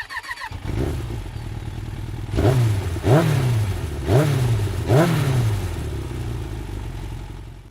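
Motorcycle engine running, with four quick throttle blips about a second apart starting some two and a half seconds in. Each blip rises sharply in pitch and falls back.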